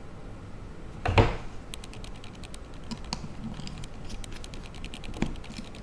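Light clicking and tapping of small tools and parts being handled on a work surface during a phone repair, with a louder knock about a second in and another near the end.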